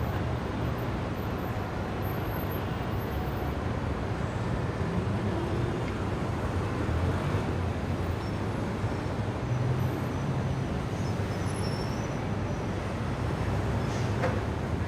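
Indian city street traffic: a steady din of engines and tyres from cars, motorbikes and auto-rickshaws passing.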